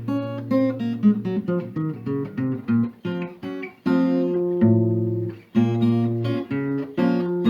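Acoustic guitar playing an instrumental passage: a run of quick picked notes, then a few longer held chords in the second half.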